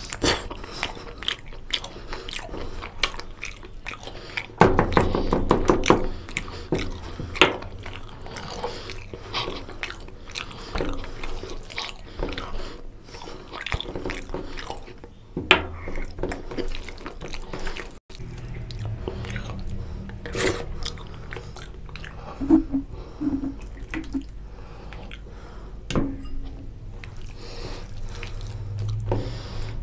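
Close-miked eating sounds: wet chewing, lip smacks and squelching from a mouthful of oily mutton paya curry and rice, as a rapid run of short clicks and smacks with a busier stretch about five seconds in.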